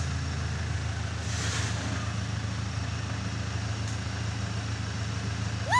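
Backhoe loader's diesel engine running steadily at idle, a low even hum, with a brief hiss about a second and a half in.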